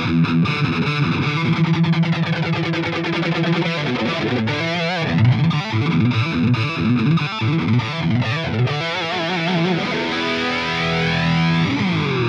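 Distorted electric guitar played through a Line 6 Pod Go preset with a flanger effect; the flanger's jet-like sweep rises and falls slowly, about every five seconds.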